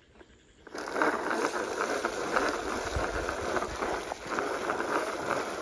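Handheld crank broadcast spreader being cranked, its spinner flinging grass seed onto dry straw mulch: a steady rattling hiss of fine rapid ticks that starts abruptly under a second in, after near silence.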